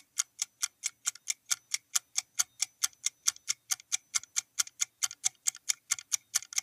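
Countdown-timer sound effect: a clock ticking steadily, roughly four and a half ticks a second, counting down the answer time.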